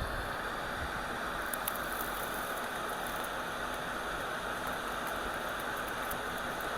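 Steady whoosh of blowing air from an electric blower on the electronics repair bench, with a few faint ticks about one and a half seconds in.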